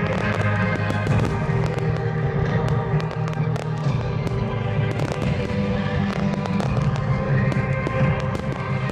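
Aerial firework shells bursting and crackling, many sharp reports in quick succession, over music with sustained tones.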